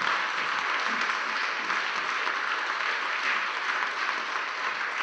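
Congregation applauding, a steady round of clapping.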